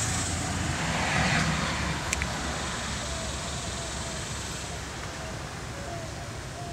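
A low, steady rumble that swells about a second in and then slowly fades, with one sharp click a little after two seconds. Faint short bird chirps come in near the end.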